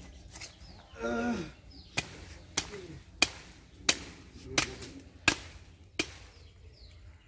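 Curved butcher's chopper chopping through a goat carcass's ribs: about seven sharp chops, roughly two-thirds of a second apart, starting about two seconds in. A short voice sounds about a second in.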